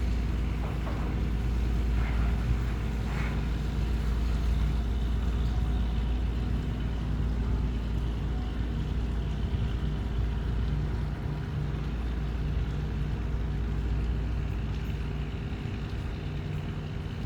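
Tugboat engine running steadily: a low, even drone.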